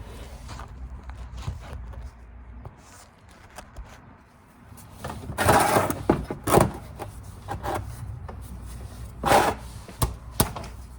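A 17 mm wrench working a car's oil drain plug loose: a few sharp metal knocks and scrapes, the loudest about halfway through and again near the end.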